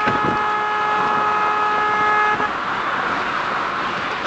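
Car horn held down by the driver slumped over the steering wheel, sounding one steady note that cuts off about two and a half seconds in. After it stops, only road and tyre noise from inside the moving car is left.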